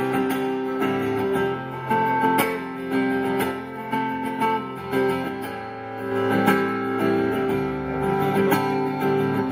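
Instrumental music: acoustic guitar plucking and strumming, with notes ringing on over held chords and no singing.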